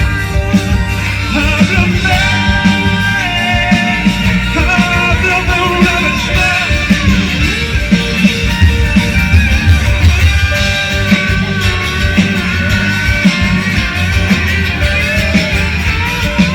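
Band playing an instrumental passage of a rock ballad: steady drums and bass under a melodic lead line.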